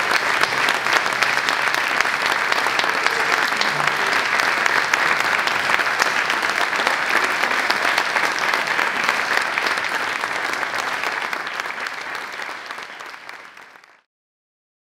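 Audience applause in a large hall: a dense, steady patter of many hands clapping, which fades out near the end.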